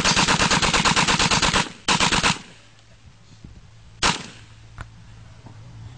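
MP40 submachine gun firing full-auto: a long, rapid burst of about a second and a half, then a short burst just after. A single shot follows about four seconds in.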